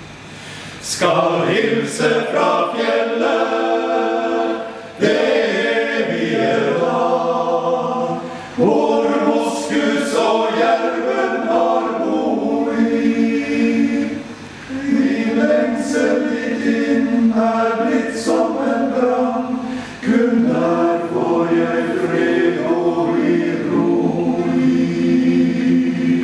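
Men's choir singing a cappella in full chords, in several phrases with short breaks for breath between them.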